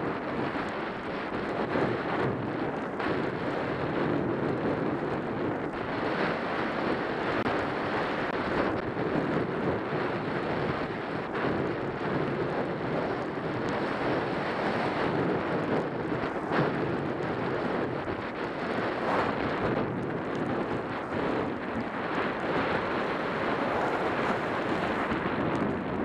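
Wind rushing over the camera's microphone at skiing speed, a steady noisy rush, mixed with the hiss and scrape of skis carving on packed groomed snow.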